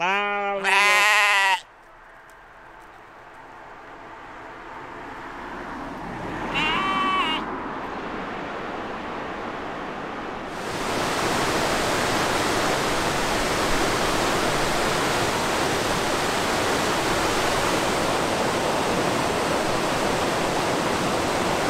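A sheep bleats loudly with a quavering voice, and a shorter, higher call follows about six and a half seconds in. Rushing water swells gradually, then about ten seconds in gives way to the louder, steady rush of a nearby waterfall.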